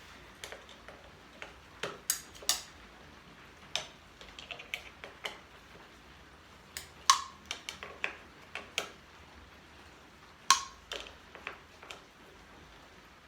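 Irregular sharp clicks and taps of pliers on metal as a motorcycle soundbar mount is tightened down, with a few louder clicks about two, seven and ten seconds in.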